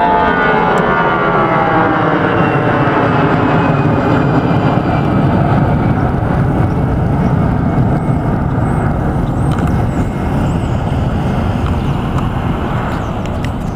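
Airbus A320 jet engines at climb power as the airliner passes overhead and moves away: a whining tone slides down in pitch at the start, then a steady deep rumble that slowly fades.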